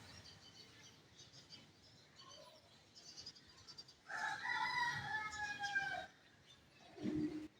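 Rooster crowing once, a single call of about two seconds that sags slightly in pitch toward its end, with faint chirping of small birds before it. A short low sound comes near the end.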